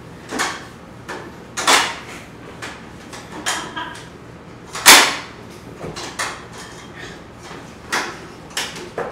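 Scattered knocks, bumps and scuffs from performers' bodies and hands against a wall, irregularly spaced, with the loudest thump about five seconds in.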